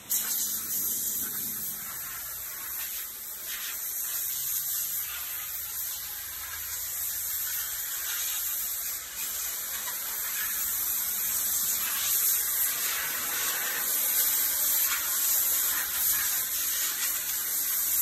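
High-pressure water spray from a self-service car wash wand hitting a car's bodywork: a steady hiss.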